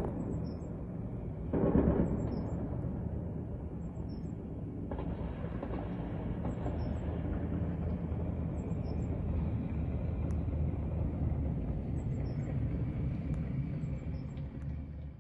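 Heavy military vehicles' engines running in a steady low rumble, swelling louder twice in the first two seconds.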